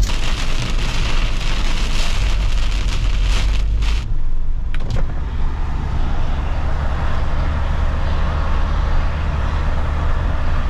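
Camper van cabin noise while driving at road speed: a steady low engine and road drone under tyre and wind hiss. About four seconds in, the hiss drops off, and a short click follows soon after.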